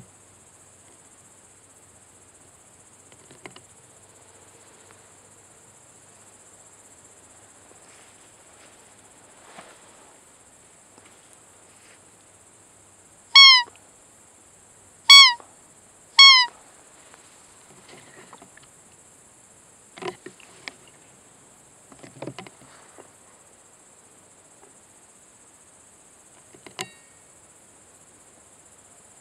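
Three short, loud, high-pitched squeaks from a hand-held roe deer call, the fiep imitating a doe in rut to lure a buck, blown in quick succession about halfway through. Under them, insects buzz steadily and high, with a few soft knocks and rustles later on.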